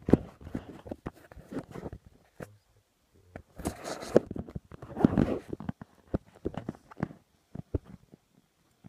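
Handling noise from a phone camera: irregular knocks and fabric rubbing, with two longer bursts of rustling about three and a half and five seconds in.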